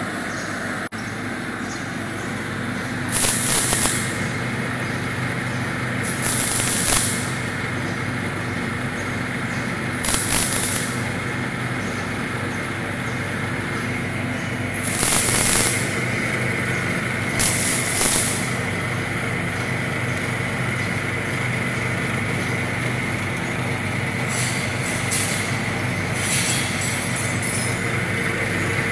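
Stainless-steel peanut powder grinding mill running with a steady motor hum, broken by five short, loud hissing bursts in the first two-thirds.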